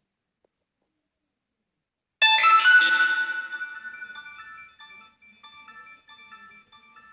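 A Nokia 2630 ringtone playing through a Samsung Galaxy S4's speaker. About two seconds in it starts with a loud, bright hit that rings away, followed by a quieter melody of short notes.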